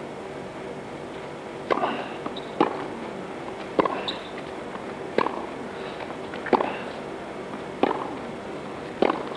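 Tennis rackets striking the ball in a rally, seven sharp hits about every second and a quarter, over a steady low hum.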